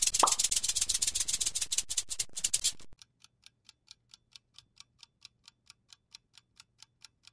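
Rattlesnake shaking its tail rattle: a loud, dry buzz of rapid clicks lasting nearly three seconds, then stopping. After it, a quiz countdown timer ticks faintly and evenly, about five ticks a second.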